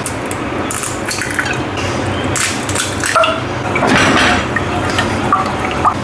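Eggs cooking in a dry pan on the stove, with no oil: a steady crackling sizzle with scattered small clicks and scrapes from stirring.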